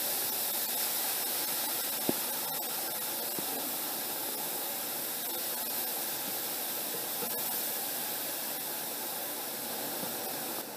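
Grated carrots cooking dry in a stainless steel pot give a steady hiss as their own juice steams off, with no water or ghee added. A spatula stirs them, with a couple of faint ticks.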